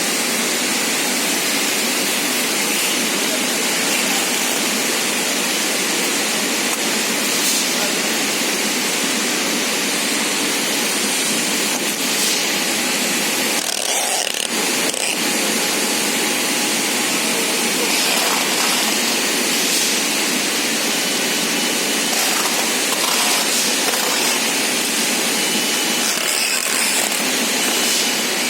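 Steady, even running noise of a rubber extrusion and microwave curing production line in operation.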